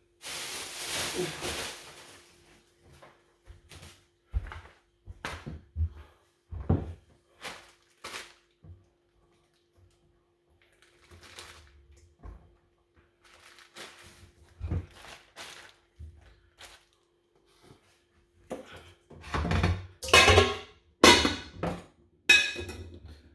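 Scattered knocks and thuds of kitchen items being handled and set down, with a short rustle at the start and a cluster of louder clattering bursts near the end.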